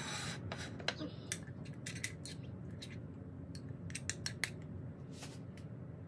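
Metal spoon clinking and scraping against a ceramic bowl as sauce is scooped out, a scattered series of sharp clicks, over a steady low hum.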